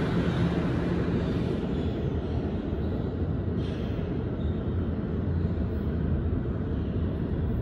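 2023 Kawasaki R211T subway train rumbling along the rails as it pulls away into the tunnel. A steady low rumble with a low hum underneath, its hissier upper part dying away after a couple of seconds as the train recedes.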